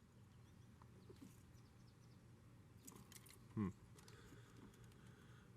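Near silence with faint small clicks and scrapes of a screwdriver pushing a wire terminal into a transmission connector; the terminal has not yet seated. About three and a half seconds in comes one short voiced sound falling in pitch, like a brief grunt.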